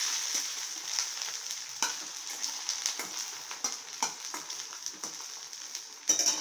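Mutton brain pieces frying in hot oil in a steel kadai, a steady sizzle, with a steel spoon scraping and knocking against the pan as the pieces are turned over. A louder, sharp noise comes near the end.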